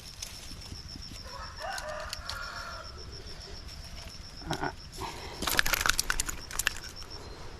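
A rooster crowing about a second and a half in, over a fast steady high insect ticking. Later comes a louder burst of sharp crackling clicks and splashes lasting about a second.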